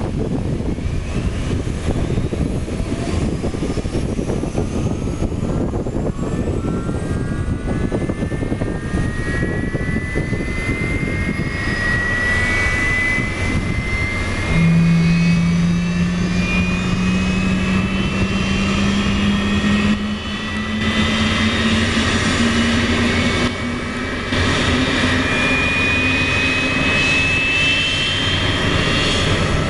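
Boeing 767-300 freighter's jet engines starting during pushback: a whine that rises steadily in pitch as the engines spool up, over a steady low rumble. About halfway, a lower hum comes in and slowly rises too.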